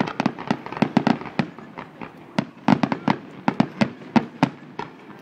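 Fireworks going off in a rapid, uneven string of sharp bangs and pops, several a second.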